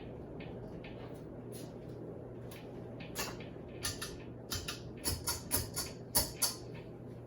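Ceiling fan motor humming steadily. Through the second half comes a run of about a dozen irregular sharp clicks and knocks.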